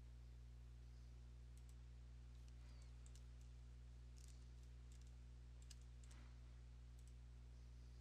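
Near silence: a steady low electrical hum with faint, sharp clicks scattered through it.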